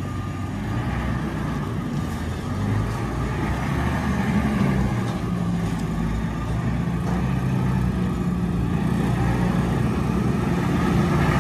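Tractor's diesel engine running steadily as the front-loader tractor drives across the yard, growing louder toward the end as it comes closer.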